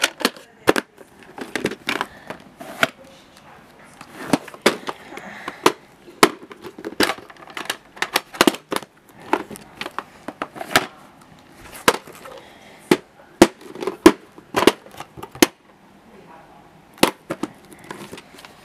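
Plastic VHS tape cases being handled, picked up and set down on a carpet: a string of irregular sharp clacks and knocks.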